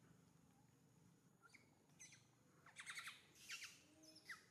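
Faint, high-pitched chirping calls: a few short chirps, a quick cluster of them about halfway through, and a short falling chirp near the end.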